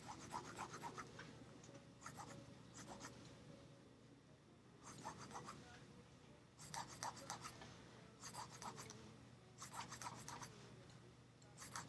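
Graphite pencil scratching on paper in short bursts of quick back-and-forth shading strokes, about seven bursts with quiet pauses between them.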